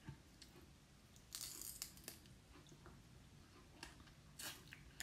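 Faint crackling and rustling of a cooked crab's shell and meat being picked apart by hand, a few brief bursts over near quiet.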